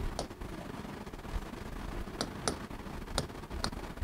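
Chalk ticking against a blackboard while words are written: about five sharp, short taps, spread unevenly with two close pairs in the second half, over a low room hum.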